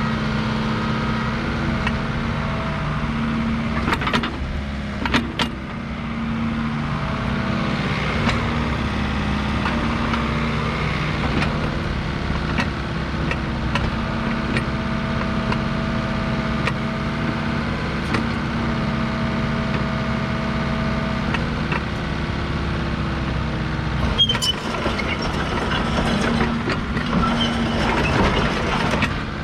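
Hitachi ZX85USBLC-3 excavator running, its diesel engine holding a steady hum, with higher whining tones that come and go. There are a few sharp clicks about four to five seconds in, and a spell of clicks and knocks in the last few seconds.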